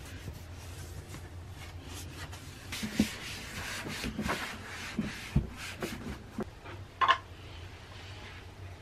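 A hand wiping a bathroom sink and countertop with a white wipe: rubbing strokes with a few light knocks, and a sharp clack about seven seconds in.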